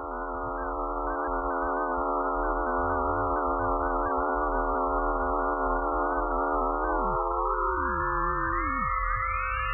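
Synthesized electronic drone: a dense chord of steady sine-like tones that swells in over the first second. About seven seconds in the chord splits, the lower tones sliding down and fading while the upper tones slide up.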